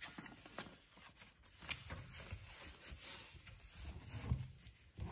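A sheet of paper rustling and crinkling as it is folded by hand into a paper airplane, with short irregular scrapes and taps as the folds are pressed down.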